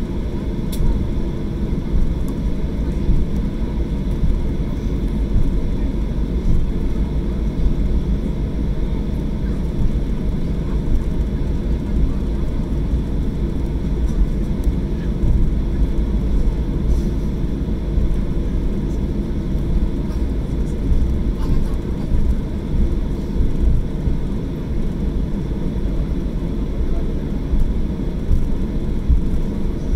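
Steady low rumble of a jet airliner heard from inside the cabin as it taxis, engines at low thrust, with a faint high steady whine and a few light clicks.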